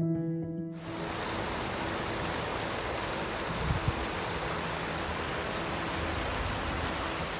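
Heavy rain pouring onto a water surface, a steady even hiss that cuts in under a second in as plucked music stops. There is a brief low thump near the middle.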